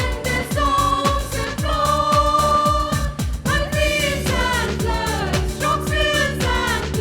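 Christian Christmas song: a sung melody with held notes over a steady, pulsing drum and bass beat.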